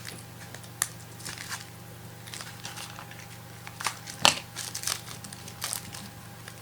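Trading cards being handled: scattered rustles and light clicks, the sharpest about four seconds in, over a steady low electrical hum.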